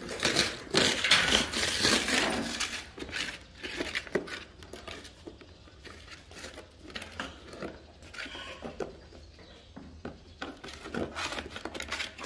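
A puppy's plastic basket being knocked and scraped across a tiled floor as the puppy plays with it: a loud burst of scraping and clattering in the first few seconds, then lighter scattered knocks and scrapes.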